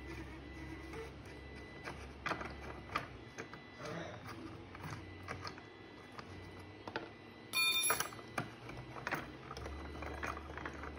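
Scattered light clicks and taps of hard plastic parts as a jointed plastic spider-prop leg joint is worked loose and taken apart by hand. About seven and a half seconds in there is one brief, shrill, high-pitched squeak, the loudest sound.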